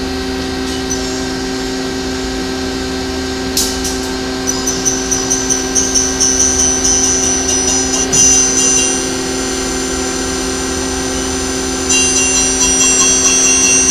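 A Mori Seiki SL-150S CNC turning center running, with a steady machine hum. For a few seconds at a time, a high-pitched ringing pulses several times a second, first about five seconds in and again near the end.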